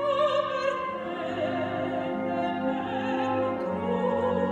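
A woman's operatic voice sings a line with wide vibrato over a symphony orchestra.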